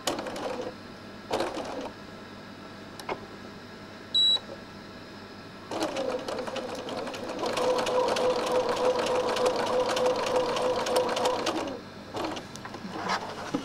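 Electric sewing machine stitching a seam through pieced quilt fabric. It gives two short bursts of stitches near the start and a short high beep about four seconds in, then runs steadily with an even hum for about six seconds. It stops near the end, followed by a few light clicks.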